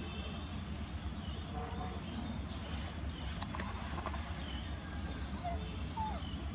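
Outdoor ambience: a steady low rumble with scattered faint, short high-pitched chirps and squeaks, and a few soft clicks near the middle.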